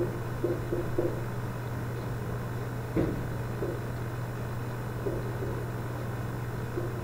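Steady low hum of background noise, with a few faint soft sounds and a single click about three seconds in.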